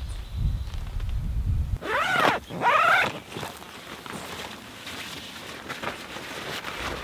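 Wind buffeting the microphone, then two short animal calls, each rising and falling in pitch, about two and three seconds in. Afterwards, light rustling and handling of tent fabric.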